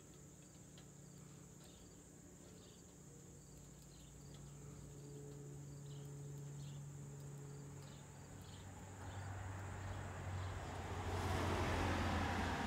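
Insects chirring steadily in grass over a faint low hum; about nine seconds in, the noise of a car approaching on the road rises and grows loud near the end.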